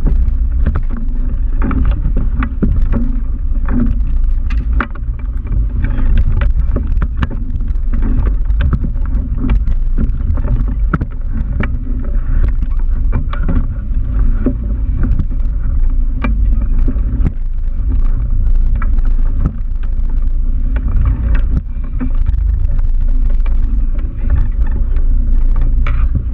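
Motor boat's engine running with a steady low rumble, wind buffeting the microphone, and scattered short knocks throughout.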